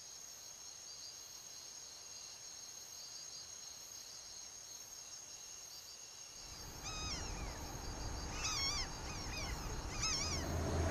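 Steady high-pitched chorus of insects. About six seconds in a low rumbling noise rises, and short rising-and-falling calls come in four or five times.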